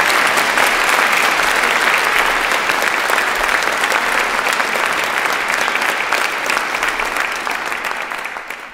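Audience applauding, a dense, steady clapping that fades away over the last couple of seconds.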